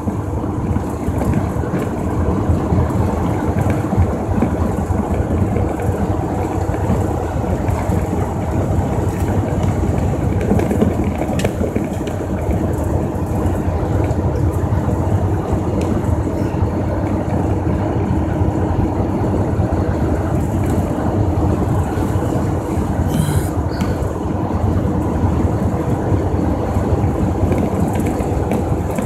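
Steady engine and road noise inside a truck's cab at highway cruising speed, mostly low rumble with a faint steady hum.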